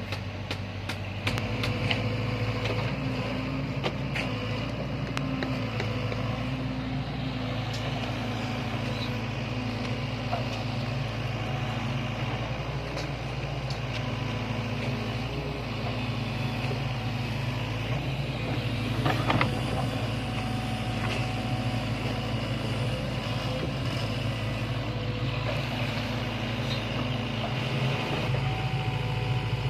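Sany hydraulic excavator's diesel engine running steadily under working load, picking up about a second in, with scattered knocks and scraping from the bucket working the dirt and one louder knock about two-thirds through.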